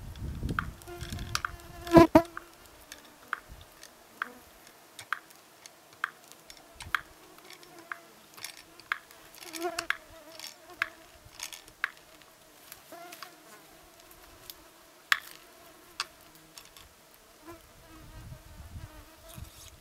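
Mosquitoes and flies buzzing in a steady whine, swelling loudest about two seconds in, with scattered sharp clicks throughout.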